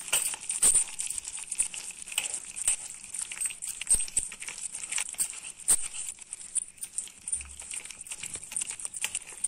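A hand squishing and mixing thick idli batter with flour, onions and coriander leaves in a plastic bowl: irregular wet squelches and clicks.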